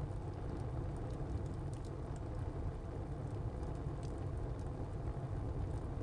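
Wood fire burning in a tile stove: a steady low rumble with scattered sharp crackles from the burning wood.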